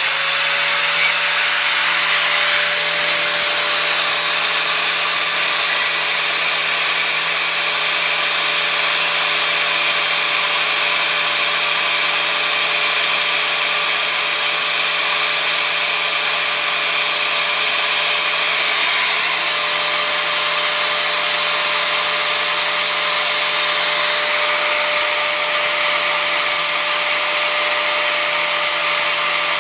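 Angle grinder running steadily at full speed with a constant whine over a hiss, grinding a thin stainless steel wiper-blade keeper strip into a lock pick. The pitch shifts slightly about two-thirds of the way through.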